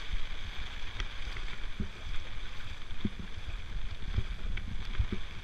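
Heavy rain falling steadily in a downpour, with wind buffeting the microphone in irregular low thumps.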